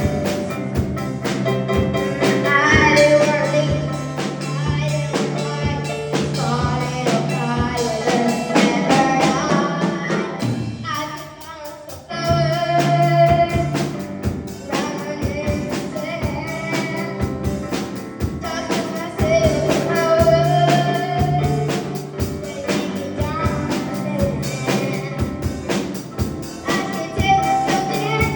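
A female singer performing a pop song with band accompaniment: sung vocals over drums, bass and guitar. The music drops away briefly about eleven seconds in, then comes back.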